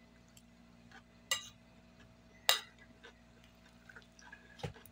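A metal fork clinking against a ceramic plate while food is picked up, three short sharp clinks spread over a few seconds, over a faint steady hum.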